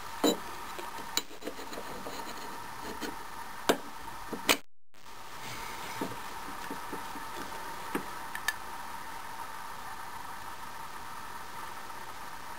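Scattered metal clicks and knocks as the hole-plate matrix is handled on the lathe's mandrel and the chuck is turned by hand, over a steady faint hum. The two loudest knocks come about four seconds in, and the sound drops out for a moment just before five seconds.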